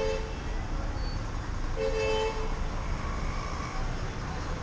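Street traffic rumbling, with a vehicle horn giving a short toot right at the start and another about two seconds in.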